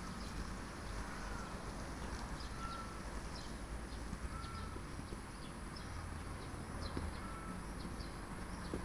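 Birds calling: a short whistled note repeated about once a second, with scattered high chirps, over a steady low background rumble.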